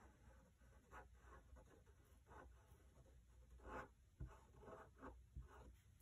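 Faint scratching of a Sharpie marker tip on a linoleum block, in short, irregularly spaced strokes as it traces over the drawing's lines.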